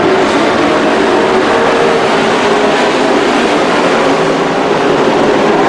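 Engines of a pack of dirt-track race trucks running together at racing speed, a loud, steady din of many engines at once.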